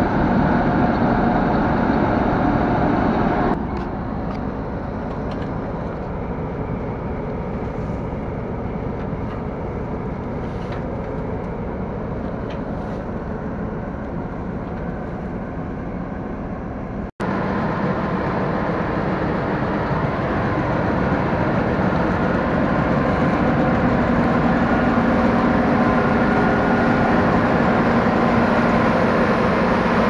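Fortschritt E-516B combine harvester running, a steady mechanical drone of engine and threshing machinery. The sound steps down abruptly a few seconds in, breaks off for an instant just past the middle and returns louder.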